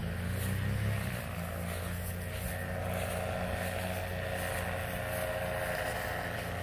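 Tandem paramotor's engine and propeller droning steadily as it climbs away after take-off.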